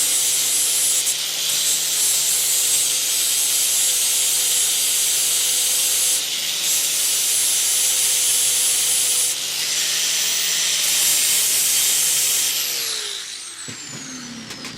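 Angle grinder (DeWALT DWE4011) with a flap disc grinding down a flux-core weld on a steel flange nut and threaded rod: a steady high motor whine under a loud hiss of abrasive on metal, changing a little as the disc is pressed and eased. About two-thirds of the way through it is switched off and the whine falls as the disc spins down.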